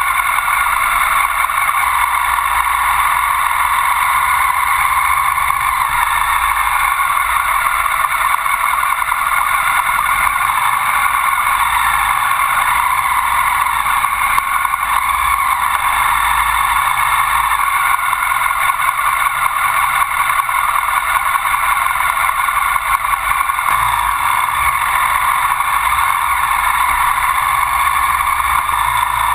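Ducati Sport 1000's air-cooled L-twin engine and road noise as the motorcycle rides along at low speed, an even, steady noise with no sharp changes.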